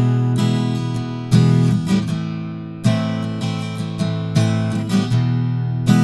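Steel-string acoustic guitar strummed in a steady rhythm of chords, with a hard strum about every second and a half and lighter strokes in between.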